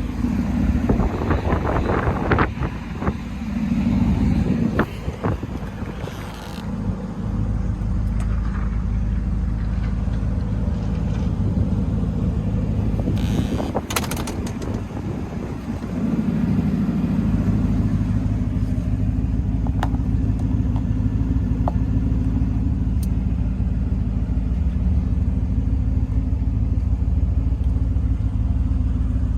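1977 Oldsmobile Toronado's V8 engine running, with several knocks and clicks over it in the first half, then idling steadily through the second half.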